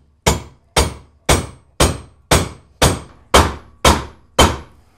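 Ball-peen hammer striking the rivets of a replacement nose sprocket on a steel chainsaw bar, swaging them over a steel backing block. Steady, even blows about two a second, nine in all, each a sharp metal strike with a brief ring.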